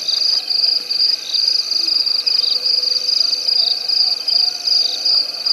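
A chorus of night insects chirping: a high-pitched, pulsing trill repeating about twice a second without a break, with other softer insect or frog calls underneath.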